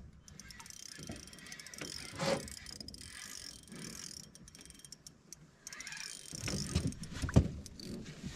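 Spinning reel being cranked against a hooked bass, its gears giving a run of fine clicking, with a few dull thumps near the end.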